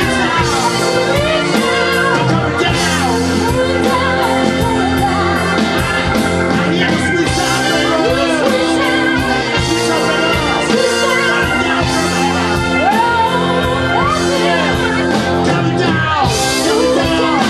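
Rock band playing live, with a voice singing over sustained instrument chords.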